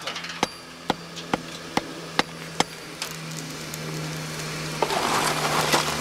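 A hand hammer strikes a hot bloom of bloomery iron on a small anvil, about two sharp blows a second. This is the consolidation stage of forging the bloom, compacting the spongy iron and knocking off slag. A steady low hum comes in about halfway through, and a hiss rises near the end.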